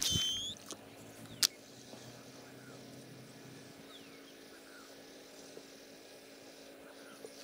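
Daiwa Ryoga baitcasting reel's spool spinning out line on a cast: a loud whir falling in pitch for about half a second, then a single sharp click about a second and a half in.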